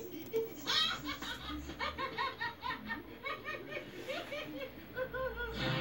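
A person laughing in a long run of short, quick, repeated bursts. Music comes in near the end.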